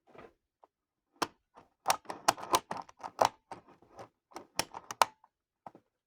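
LiFePO4 battery cells knocking and clacking against each other as they are handled and fitted together into a pack: an irregular run of sharp clicks and knocks, busiest in the middle.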